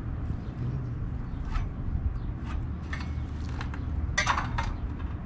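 Tape measure and pencil handled on weathered wooden fence boards while measuring and marking: scattered light taps and scrapes, with a short cluster of clicks about four seconds in, over a steady low rumble.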